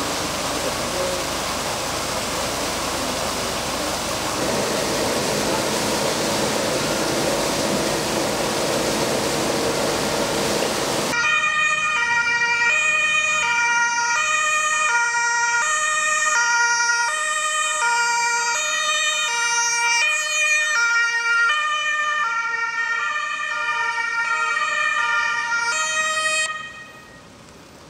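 Water gushing hard out of a tanker truck's rear outlet into a flooded street, a steady rush. About eleven seconds in, an ambulance's two-tone siren takes over, switching back and forth between a high and a low note, and cuts off suddenly near the end.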